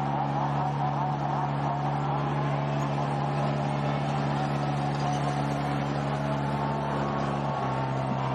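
Motocross bike engines running, with a steady low drone under shifting engine pitches; part of the drone drops away near the end.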